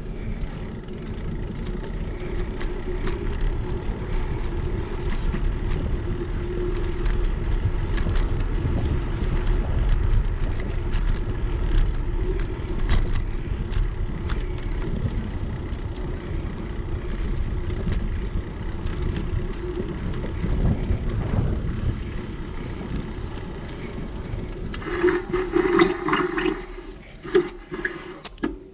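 Wind rushing over a GoPro microphone and bicycle tyres rolling on a paved path while riding. Near the end there is a brief louder, rougher stretch, and then the sound drops away as the bike slows to a stop.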